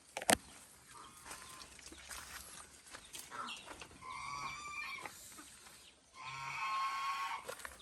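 Farm poultry calling: a few drawn-out pitched calls about four seconds in and again past six seconds. A single sharp click comes just after the start.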